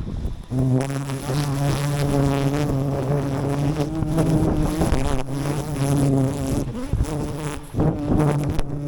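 Wild honeybees buzzing: a steady, slightly wavering hum that starts about half a second in and briefly drops away near the end.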